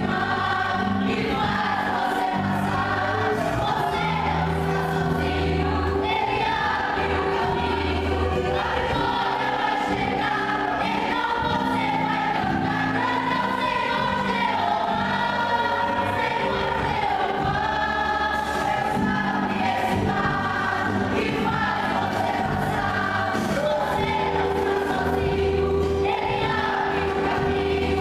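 A vocal group singing a gospel praise song in Portuguese, with a full band accompaniment of bass and drums.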